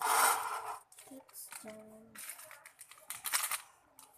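Plastic seasoning sachets crinkling and tearing, with a loud rip right at the start and more crackling a couple of seconds later. A brief voice sound comes in between.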